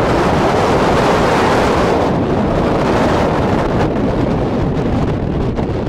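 Strong wind blowing hard across the microphone on the deck of a square-rigged sailing ship under sail in a brisk 20–30 knot breeze: a loud, steady rushing buffet, heaviest in the first two seconds.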